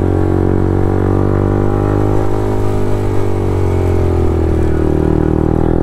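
Motorcycle engine running steadily while under way, its pitch dipping after about four seconds and rising again near the end as the revs fall and pick back up.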